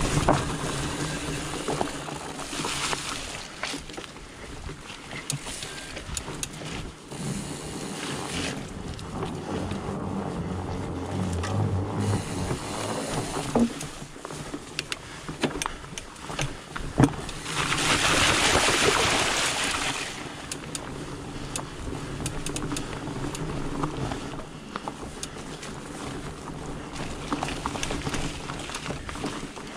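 Trek Farley 5 fat bike rolling along a trail: a steady low hum from the tyres, with rattles, clicks and knocks from the bike over bumps. About two-thirds of the way through, a louder rushing noise rises and fades over about two seconds.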